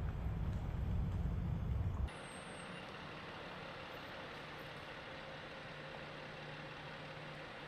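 A loud, uneven low rumble, like wind on the microphone, cuts off about two seconds in. It gives way to a quieter, steady hum of a car engine as an SUV rolls slowly by.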